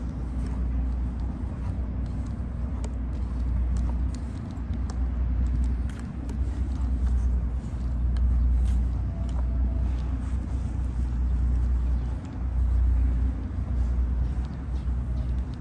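Low, steady rumble of a motor vehicle that swells and dips, with faint rattles and clicks over it.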